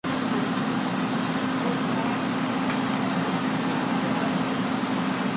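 An engine running steadily at constant speed: a low, even hum under a hiss of noise, with no change in pitch or level.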